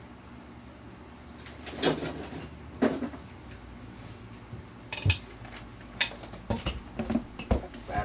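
Clatter of metal battery-charger clamps and tools being handled on a workbench: single sharp knocks a second or so apart at first, then several quick knocks close together near the end.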